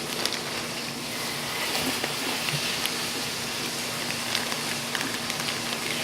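Food frying in a pan: a steady sizzling hiss with scattered small crackles and pops.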